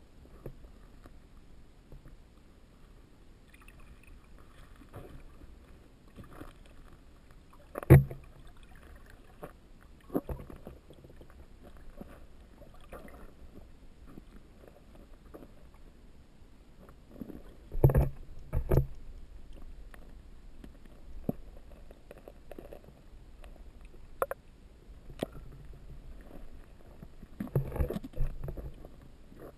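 Muffled underwater sound heard through a GoPro's sealed housing: a low steady rumble broken by scattered knocks and thumps. The sharpest knock comes about eight seconds in, a pair follows just after halfway, and several more come near the end.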